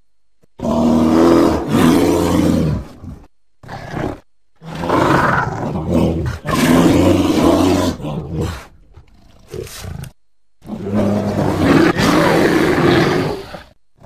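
Sound-effect roars for a giant ground sloth (Megatherium), built from layered library animal and monster recordings: three long, deep roars of two to four seconds each, with short calls between them.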